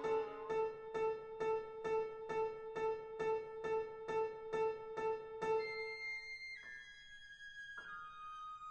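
Chamber ensemble of flute, clarinet, violin, cello, trumpet, horn and piano playing contemporary classical music: one note repeated about twice a second, growing softer, then from about six seconds in, high held tones entering one after another and stepping down in pitch.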